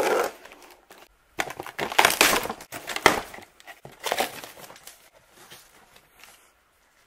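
Scissors slitting the packing tape on a cardboard box, then the cardboard flaps pulled open and the packing inside handled: crinkly, tearing rustles, loudest in a burst from about a second and a half to three seconds in, with fainter rustling near the end.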